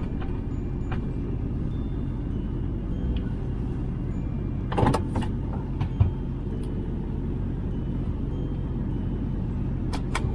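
Ford F-350 pickup running steadily while plowing snow, with a few short knocks about halfway through and again near the end.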